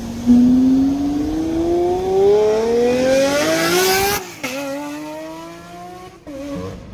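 Lamborghini Aventador's 6.5-litre V12 launching hard from a standstill, pitch climbing steadily through one gear for about four seconds. It drops sharply with a crack at an upshift, climbs again through the next gear, and drops at a second upshift near the end as the car pulls away.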